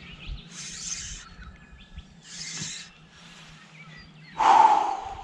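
Birds chirping faintly over a steady low hum, broken by three short rushing noises. The last of them, near the end, is the loudest.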